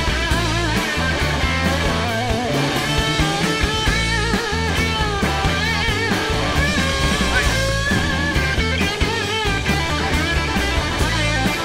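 Rock music: a lead guitar playing bending, wavering notes over a steady bass and drum backing.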